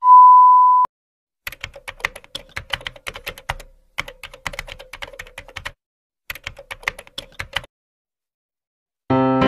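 A steady 1 kHz test-card tone that cuts off just under a second in, followed by a keyboard-typing sound effect: three runs of rapid key clicks separated by short pauses. Piano music comes in near the end.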